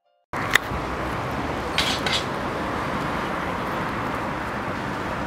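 Steady outdoor background noise with traffic, broken by a sharp click about half a second in and a few short knocks around two seconds in.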